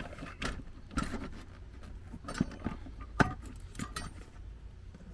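Locksmith's lockout tools being handled and taken out of a bag: scattered light clicks and metal clinks, the sharpest about three seconds in.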